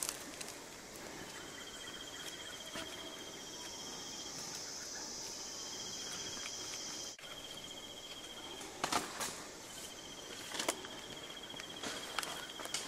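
Insects trilling: a high, pulsed trill repeats in runs of about two seconds, and a higher, steady buzz joins it from about three to seven seconds in. A couple of brief rustles come near the end.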